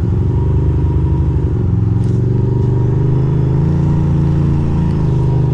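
Ducati Monster 620's air-cooled L-twin engine running under the rider in city traffic, the pitch rising about a second and a half in as it pulls away, then easing off near the end.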